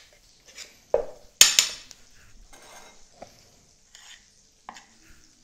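A metal spoon clinking against a stainless-steel cup and a plate while curry mayonnaise is spooned out. There is one loud ringing clink about a second and a half in, with a few lighter taps.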